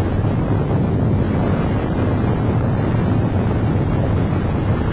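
Strong typhoon wind buffeting the microphone over heavy surf breaking against a rock seawall. The noise is a steady, deep rumble.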